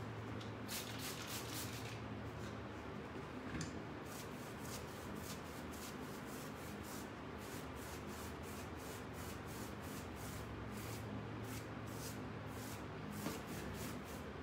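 A paintbrush scrubbing and dabbing paint onto a cabinet side textured with glued crumpled paper towels, in quick scratchy strokes, about three a second, with a denser run about a second in.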